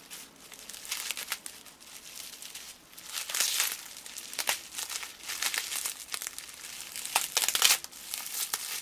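Packing tape being peeled off and plastic bubble-wrap packaging crinkling as it is handled, in irregular crackling rustles with louder bursts about three and a half seconds in and near the end.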